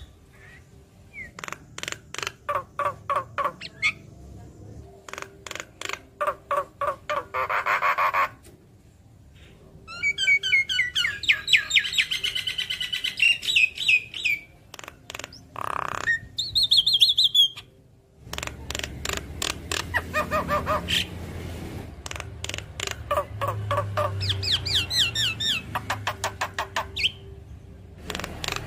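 Javan myna (jalak kebo) singing: a varied chatter of fast repeated clicking notes, broken by rapid rippling trills about ten seconds in and a short high whistle a little later.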